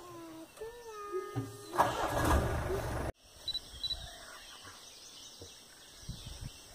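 A vehicle engine starting: a falling whine, then the engine catching and running loud for about a second before cutting off abruptly. Faint outdoor ambience with a few short chirps follows.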